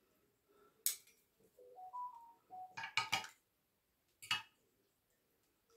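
Metal fork and spoon clinking and scraping against a plastic divided food tray as a person begins eating: a click about a second in, a quick cluster of clinks around three seconds, and another near the end. Between them, a few faint notes of a short tune rise and fall.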